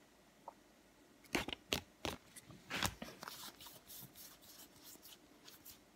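Pokémon trading cards being handled and slid against one another as a stack is sorted through: a few sharp card flicks from about a second and a half in, then softer rustling.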